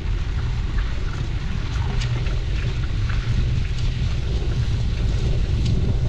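Wind buffeting the microphone of a moving gravel bike, over a steady low rumble of tyres rolling on a rough dirt road, with a few faint clicks.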